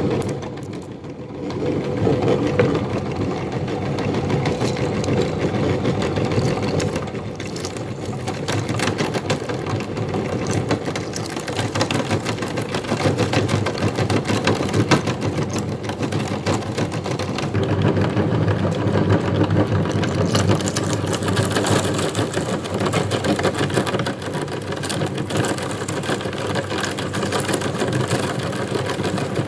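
Electric meat grinder running steadily under load as it grinds glutinous rice cake mixed with shrimp powder. The motor hum is continuous, with a fine crackle over it and a brief dip about a second in.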